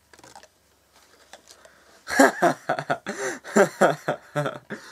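A man laughing, a string of short voiced bursts starting about two seconds in.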